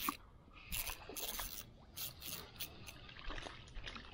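Water splashing and trickling in a string of short splashes and drips, about seven in the first three seconds, then quieter.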